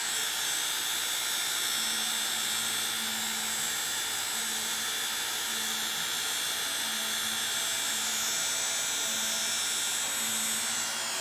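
Small Conair hair dryer blowing steadily with a high whine, drying wet alcohol ink on paper.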